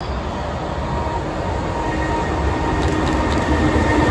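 JR Freight EH500 electric locomotive hauling a container freight train on its approach: a low rumble with a few faint steady humming tones over it, slowly growing louder.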